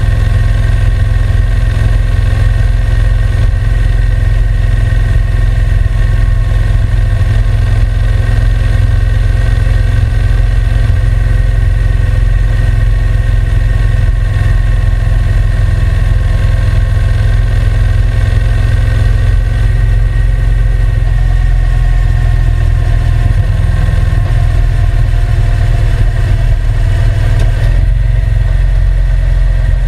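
Honda NC750X's parallel-twin engine running steadily, with a slight change in its note near the end.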